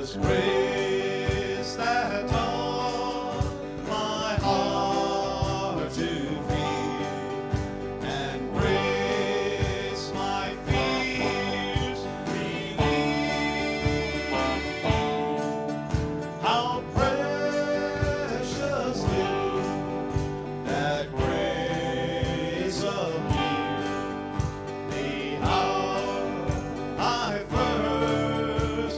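Live worship band playing a song: a man sings lead over strummed acoustic guitar, electric guitar, bass guitar and a drum kit keeping a steady beat.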